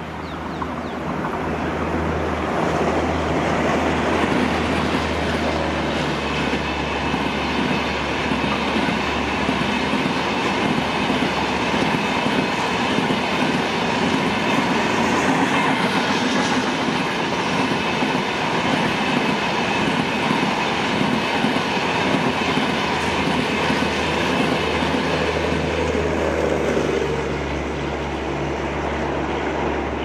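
Humsafar Express passenger coaches running past at speed: a steady rush of steel wheels on rail that builds over the first couple of seconds and eases off near the end as the train draws away.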